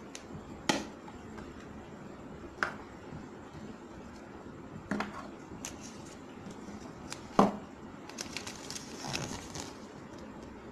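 Plastic toy capsule being pried open and handled: four sharp plastic clicks a couple of seconds apart, the last the loudest. Near the end comes a short crinkly rustle as the folded paper insert is unfolded.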